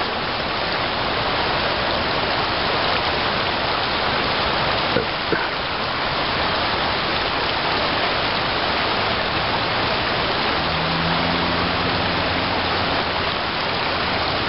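Steady rush of river water flowing over shallows.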